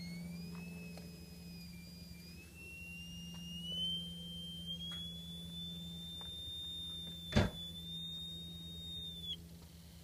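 Brunner motorhome fridge vent fans squealing on startup: a high whistle that climbs in pitch over the first few seconds, holds steady, then cuts off near the end, over a steady low hum. A single sharp click about seven seconds in.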